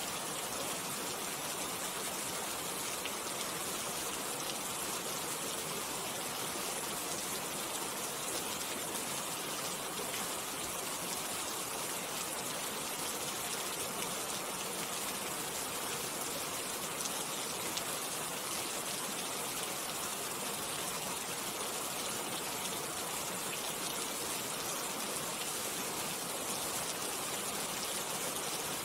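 Steady rain falling: an even, bright hiss of countless small drops that does not let up.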